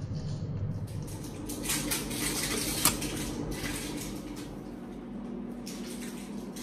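Water pouring from a saucepan into a brass kettle, then metal clinks and knocks as the pot and the kettle's lid are handled, the sharpest clink about three seconds in.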